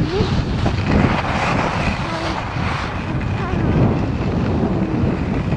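Wind buffeting a Garmin VIRB action camera's microphone while skiing downhill at about 25–30 km/h, a loud steady rush, with the hiss of skis sliding over groomed snow.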